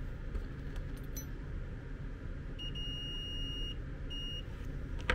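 Multimeter continuity tester beeping: one beep of about a second, then a short second beep. The beep means the probes have found a connection between the white wire and a connector pin.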